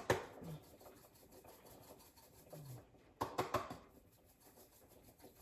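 Dry rubbing and scratching as whole dried oregano is handled and added to the pot, with a sharp click at the start and a short burst of rustling about three seconds in.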